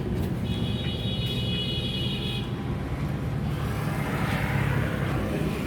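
New Holland 5620 tractor's diesel engine running steadily at low revs. A high steady tone sounds over it for about two seconds near the start.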